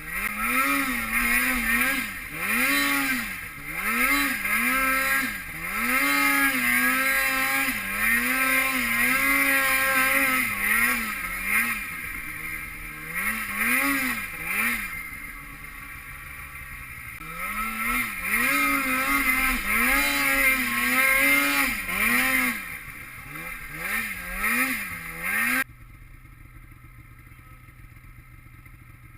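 Snowmobile engine revving up and down again and again as the throttle is worked, its pitch rising and falling about once a second. Near the end the sound cuts off abruptly to a low, steady hum.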